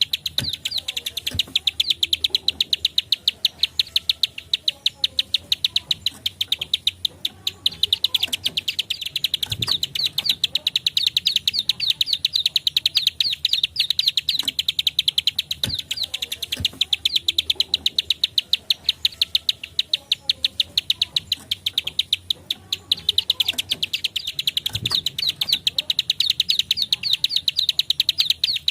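Prinia (prenjak klik) calling in a rapid, unbroken run of sharp high clicking notes, about ten or more a second, with a short lull about a quarter of the way in and another about three quarters in.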